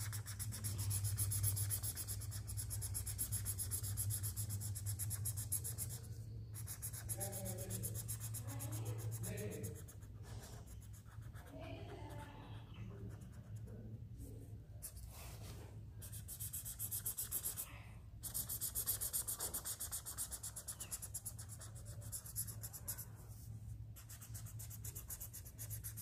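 Felt-tip sketch pen scratching across paper in quick back-and-forth colouring strokes, softer for a stretch in the middle, over a steady low hum.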